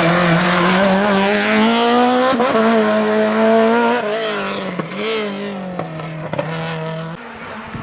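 Race car engine at full throttle on a hillclimb, pitch climbing through the revs with short breaks at gear changes, then fading as the car moves away.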